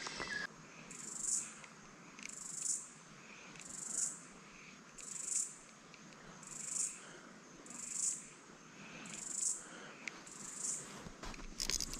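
Insects calling in a steady rhythm of high-pitched swells, each rising and fading, about one every 1.3 seconds.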